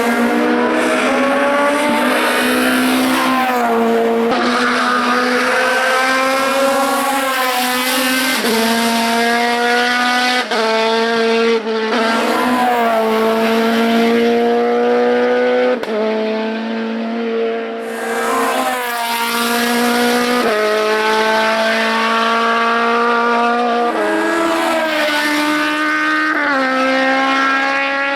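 Hillclimb race car engine at high revs under hard acceleration, its pitch climbing through each gear and dropping sharply at each gear change, one shift after another.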